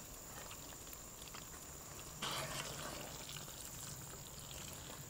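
Thick chili sambal bubbling faintly in a pan. About two seconds in, a spatula starts stirring it through the quail eggs and sliced shallots, and the sound gets a little louder.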